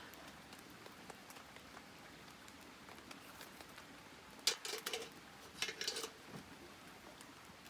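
Campfire crackling faintly with scattered small pops, and two louder rough crackles, one about four and a half seconds in and another about a second later.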